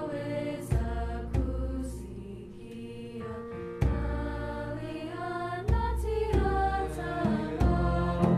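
A mixed high school choir singing sustained chords with piano accompaniment. Piano chords are struck at irregular intervals, and the singing softens briefly a couple of seconds in before swelling again.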